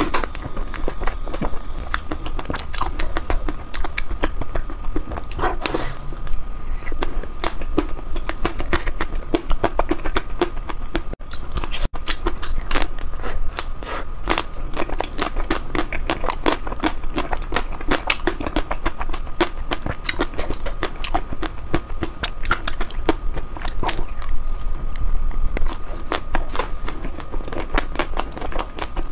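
A person biting and chewing ice cream with a dense, irregular run of crisp crackling clicks.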